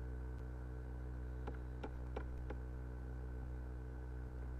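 Four quick computer-mouse clicks, about a third of a second apart, over a steady low hum.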